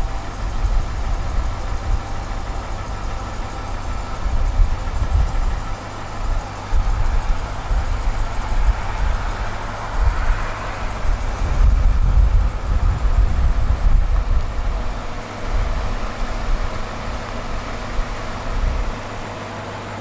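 BMW M550i's twin-turbo V8 idling as the car creeps under remote-control parking, with a gusty low rumble underneath.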